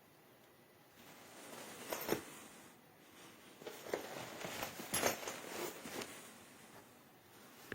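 Rustling handling noise in two stretches, with a few sharp clicks or light knocks, the strongest about two seconds in and again about five seconds in.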